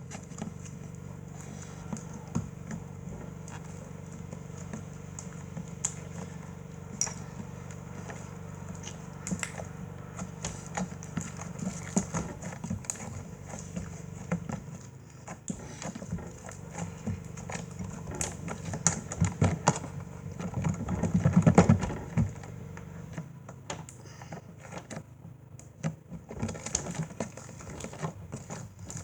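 Slime being squeezed and worked by hand, making irregular small wet clicks and pops, with a denser, louder stretch of squishing about two-thirds of the way through, over a steady low hum.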